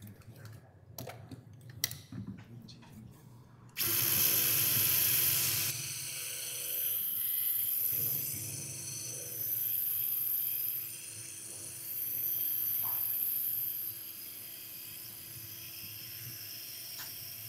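A handheld powered surgical drill starts suddenly about four seconds in, after a few faint clicks, and runs in about four bursts of roughly two seconds, with a lower steady whir between and after them. It is drilling into an upper thoracic vertebra's pedicle through the robot arm's guide tube.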